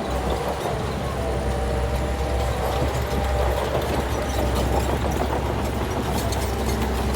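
Heavy diesel engine of a Shantui crawler bulldozer running steadily with a deep, even hum and a fainter higher whine. A few light clicks near the end.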